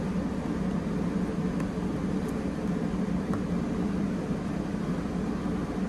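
Steady low hum that does not change, with a few faint clicks about one and a half, two and a half and three and a half seconds in.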